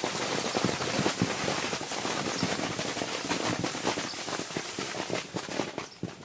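Cherry plums shaken from the tree, falling in a dense run of small quick hits on plastic sheeting and leaves, like heavy rain. It stops suddenly near the end.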